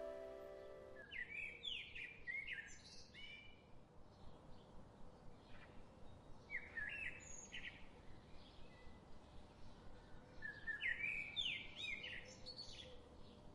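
A songbird singing three short phrases of quick, sliding whistled notes, a few seconds apart, over faint outdoor background noise. Background music fades out within the first second.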